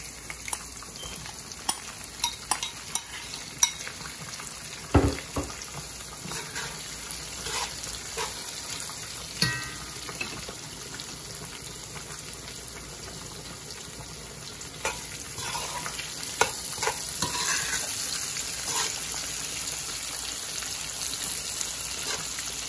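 Sliced sausage, bell peppers and onions sizzling in oil in a metal pot, with a utensil clacking against the pot as they are stirred. The sizzle grows louder about two-thirds of the way through.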